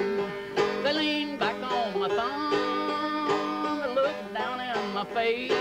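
Banjo strummed in a steady rhythm under a man's singing voice that holds long, wavering notes: a homemade folk song.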